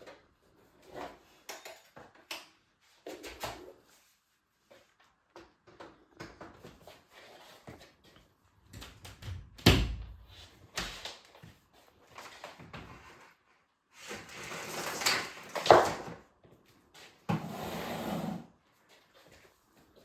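Irregular handling noise: clicks, knocks and rattles of objects being moved and set down, with a heavy thump about ten seconds in and a couple of longer scraping or rustling stretches near the end.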